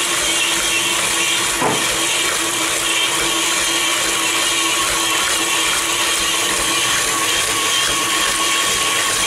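KitchenAid Classic stand mixer running steadily with a constant motor whine, its beater working shortcrust pastry dough in the stainless steel bowl. A single short knock about one and a half seconds in.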